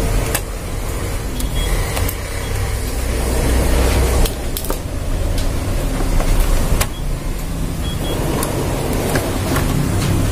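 Steady low rumble with a hiss over it, broken by a few sharp clicks as wiring-harness connectors are handled and plugged into a photocopier's DC controller board.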